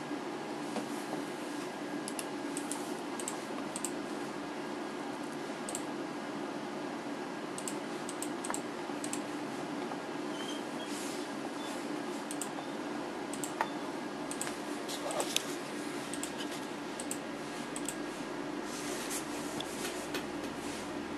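Keys clicking irregularly on a wireless Bluetooth keyboard as text is typed, over a steady background hum.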